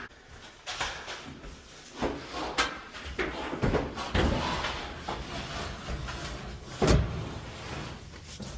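Clothes dryer being pushed back into place: irregular clunks and scraping, with one louder knock about seven seconds in.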